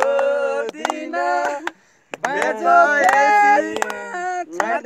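Several voices singing a Nepali song together, with hand claps, and a short pause just under two seconds in.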